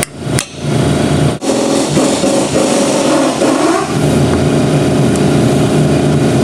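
Two sharp hammer taps on a pin punch, driving the parking pawl pin further into the aluminium case of a Chrysler 42RLE transmission. Under them is a loud, steady mechanical drone.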